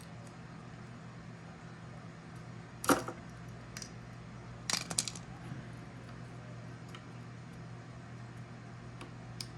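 A few sharp clicks and knocks of small parts being handled: the new rocker switch and its wire connectors being worked on the grinder. The loudest is about three seconds in, a pair follows about two seconds later, and a last one comes near the end, over a steady low hum.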